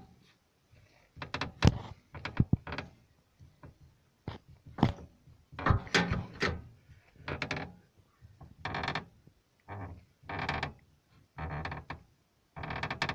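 Renault Mégane II suspension squeaking: repeated short creaks and knocks, roughly one a second and unevenly spaced.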